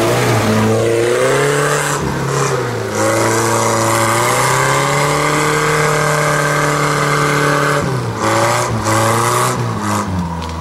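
Off-road 4x4's engine revving hard as it drives through deep mud ruts. The pitch climbs over the first second, holds high and steady for several seconds, then drops briefly about eight seconds in before climbing again and falling near the end.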